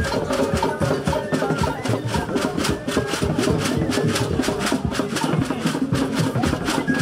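Traditional Nigerian dance music: drums and shakers playing a fast, even beat, with a high melodic line held over it.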